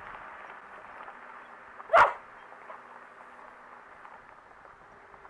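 A dog barks once, a single short bark about two seconds in, over faint steady background noise.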